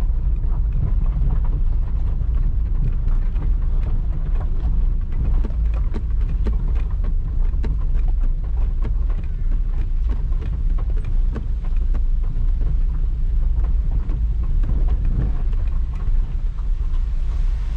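Heavy steady rumble of a moving vehicle, with wind buffeting the microphone and many scattered light ticks and knocks.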